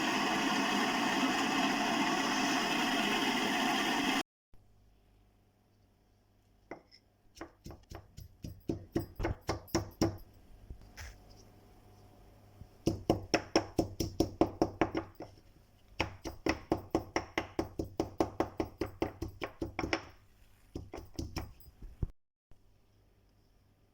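A kitchen mixer grinder running steadily, which stops abruptly about four seconds in. Then several runs of quick, rhythmic knocks and taps, about four to five a second.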